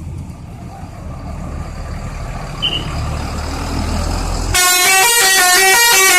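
A bus engine rumbling and growing louder as the bus draws near, then, about three-quarters of the way in, a loud 'telolet' musical bus horn plays a quick tune of several stepping notes.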